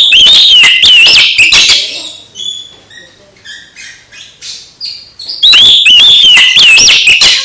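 Oriental magpie-robin (kacer) singing: two loud bursts of rapid sliding whistles and trills, each about two seconds long, the second coming about five seconds after the first, with softer scattered chirps between them.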